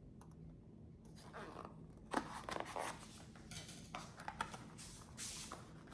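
Packaging being opened and handled by hand: irregular rustling and crinkling, with a sharp click about two seconds in.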